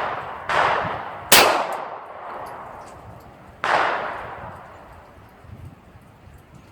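9mm pistol fired three times: two shots under a second apart, then a third about two seconds later, each with a long echoing decay.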